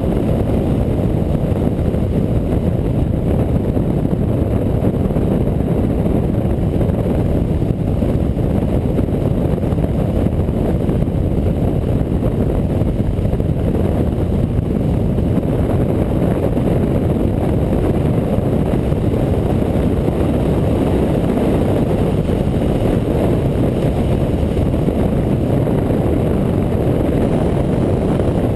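Motorcycle riding at a steady road speed, its engine and the rushing air picked up by a camera mounted on the bike as a steady low rumble that barely changes.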